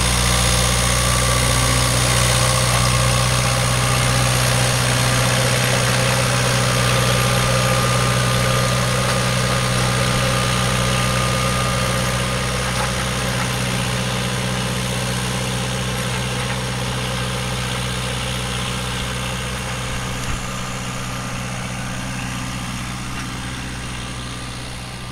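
Farm tractor engine running steadily under load while driving a Weed Badger rotary weeder through the orchard soil. The sound grows gradually fainter over the last several seconds.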